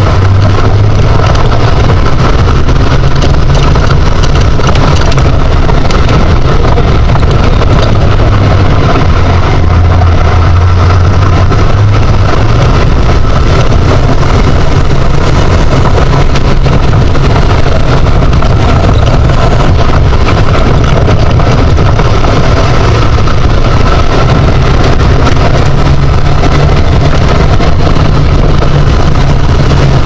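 Steady loud driving noise in the open cockpit of a Birkin Seven sports car on a mountain road: a continuous rumble with a low drone that shifts slightly in pitch.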